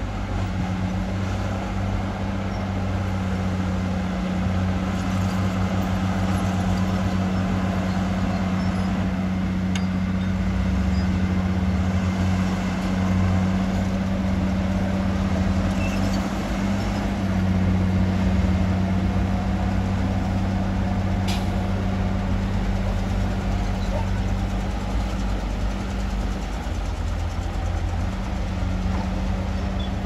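Diesel engine of heavy earthmoving machinery running steadily at an even pitch.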